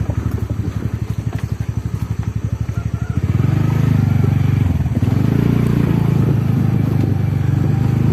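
TVS Ntorq 125 scooter's single-cylinder four-stroke engine putting along with a distinct pulse. About three seconds in it runs louder and steadier as the throttle opens and it pulls harder.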